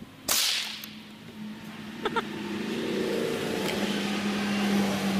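A single .22 LR rifle shot firing a Remington Thunderbolt round cracks about a quarter second in. Two light clicks follow about two seconds in. A steady engine hum, like a vehicle's, then builds and grows louder through the rest.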